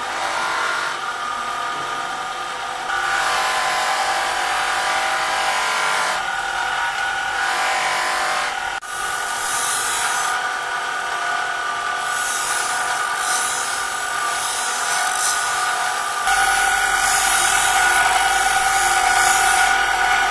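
Electric bench grinder running with a steady whine while a steel knife blade is ground and polished against its abrasive wheel; a hissing grinding sound comes and goes as the steel is pressed to the wheel and lifted off. A sharp break about nine seconds in.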